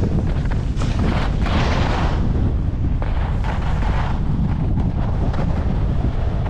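Wind buffeting the camera microphone during a downhill ski run, with the hiss of skis scraping over the snow coming in surges, the strongest about one to two seconds in.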